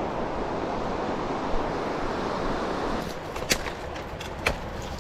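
Creek water rushing steadily; about three seconds in the rush gets quieter, and two sharp snaps follow, a second apart.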